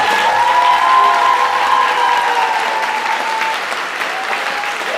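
Audience applauding at the close of a dance routine, with long, drawn-out high cheers held over the clapping and a fresh one rising near the end.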